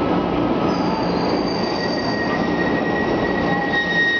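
Metro train wheels squealing: a steady, high-pitched squeal that grows stronger toward the end, over the constant noise of a busy underground metro platform.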